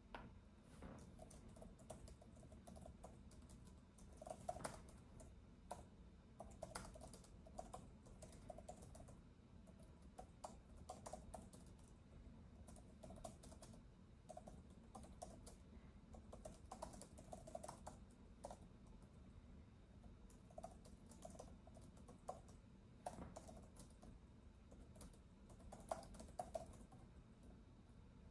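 Faint typing on a keyboard: irregular runs of soft key clicks broken by short pauses, over a low steady background noise.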